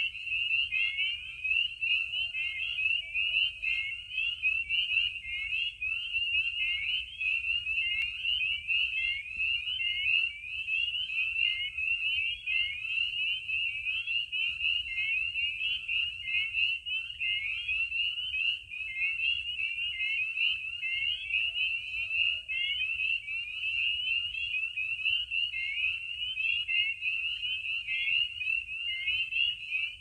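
A dense chorus of spring peepers, many high peeps overlapping without a break, the spring breeding chorus of a vernal pool. A barred owl hoots faintly twice, a few seconds in and again about twenty-one seconds in.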